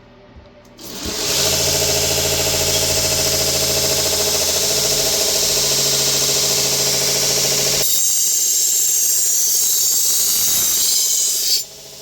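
A Vevor 1x30 belt grinder switches on about a second in and runs steadily on a 120-grit zirconia belt, a loud hum under a bright hiss. Near the eight-second mark the low hum falls away while the hiss carries on, and the sound dips briefly near the end.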